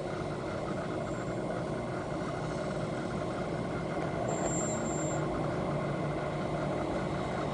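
Steady low mechanical hum and rumble, like a running engine or motor, with a brief faint high whine about halfway through.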